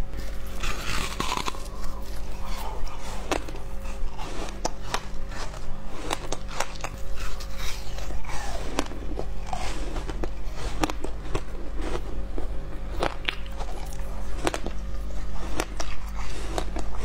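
Crunching of frozen coloured ice being bitten and chewed right at a lapel microphone: many sharp, irregular crunches. Background music plays underneath.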